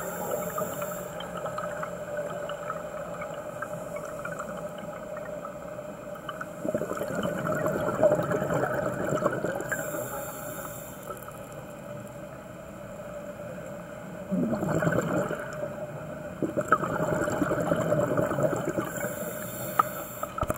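Scuba diver breathing through a regulator underwater: exhaled bubbles gurgle for several seconds at a time, with a short hiss of inhalation between breaths.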